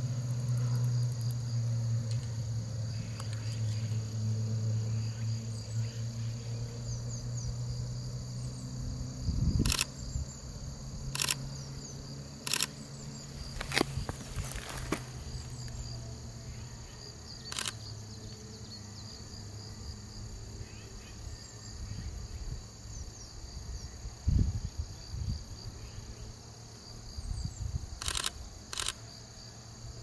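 Camera shutter clicking about seven times, as single shots and a quick pair near the end, over faint insect chirring; a low steady hum fades out about a third of the way in.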